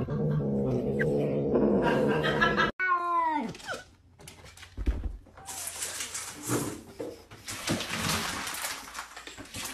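Cats vocalising: a long, wavering low growling yowl over the food bowl, then, about three seconds in, a single meow that falls in pitch. From about halfway on there is a run of rustling and clattering noise.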